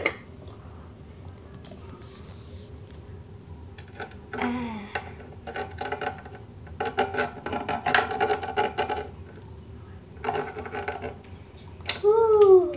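Small plastic dolls scraping and clattering in a plastic dish with a little water, in several short bursts. A child makes a short wordless vocal sound near the end.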